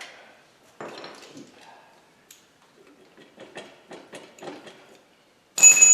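Hand tools working metal on an engine as a stuck alternator is worked loose: a knock about a second in, then a run of small irregular clicks. Near the end comes a sharp metallic clank that rings on briefly.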